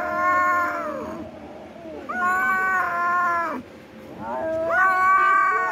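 A cat meowing in long, drawn-out yowls: three calls about two seconds apart, each held steady and then falling off in pitch at the end.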